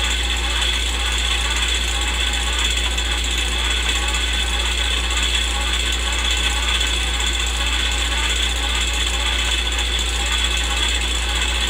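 Old-film sound effect: a steady mechanical whir with a constant low hum and hiss, like an old film projector running.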